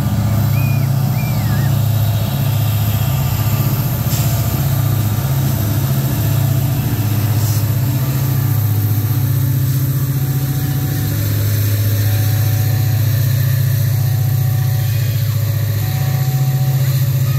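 A long coal freight train passing close by: a diesel locomotive's engine runs with a deep, steady drone, then the coal hopper wagons roll past on the rails.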